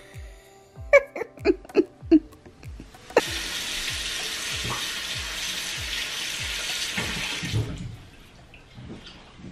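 Bathroom sink tap turned on, water running steadily into the basin for about four and a half seconds before being shut off. Background music with a steady beat plays underneath.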